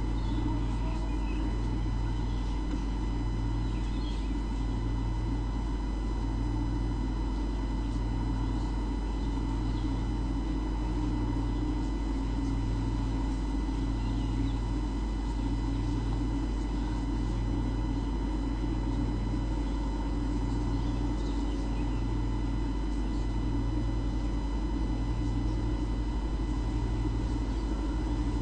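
Steady machine-like hum with a low drone that pulses evenly about once every 1.3 seconds, under faint steady high-pitched tones.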